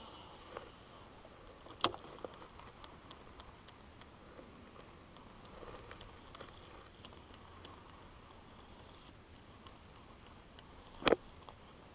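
Baitcasting reel being cranked on a slow retrieve: a faint patter of small ticks, broken by two sharp clicks, one about two seconds in and a louder one near the end.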